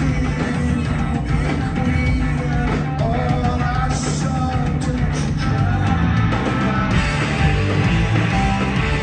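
Live rock band playing at full volume: electric guitars, bass guitar and drums.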